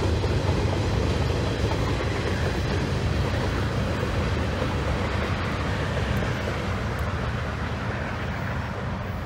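Freight train boxcars rolling along the rails, a steady low noise that grows gradually fainter as the end of the train moves away.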